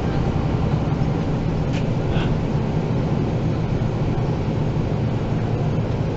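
MAN NG 313 articulated bus heard from inside the passenger compartment, its engine running with a steady low drone.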